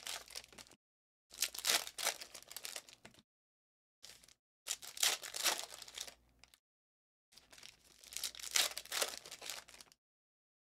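Foil trading-card pack wrappers crinkling and tearing as the packs are ripped open by hand. The rustle comes in about five separate bursts, with complete silence between them.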